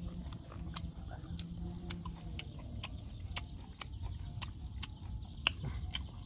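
Close-up chewing of firm mango flesh: irregular sharp crunching clicks and mouth smacks, a few each second, over a low rumble. A low steady hum runs through the first two seconds.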